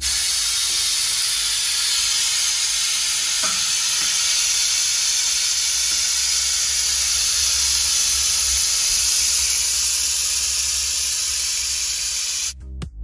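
A steady, loud hiss with a low rumble beneath it, starting and stopping abruptly.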